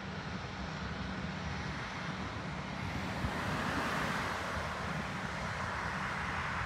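Jet airliner's engines running as the aircraft taxis and turns, heard as a steady whooshing hum over a low rumble. The engine noise grows louder from about three seconds in.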